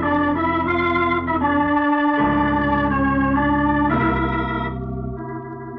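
Organ music bridge between scenes of a radio drama: a run of sustained chords that changes every half second or so, then fades down near the end.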